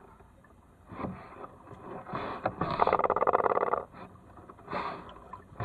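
Kayak paddle strokes: the blades dip and pull through calm water every second or so, each stroke a short swish with water running off the blade. About three seconds in comes a louder rasping noise lasting about a second.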